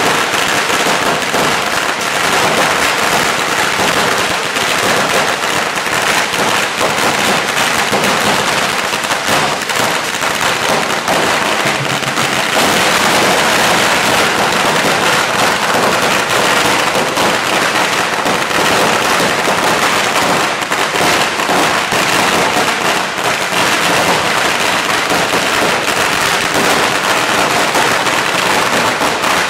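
A long string of firecrackers going off in a continuous, dense rapid crackle of bangs without a break.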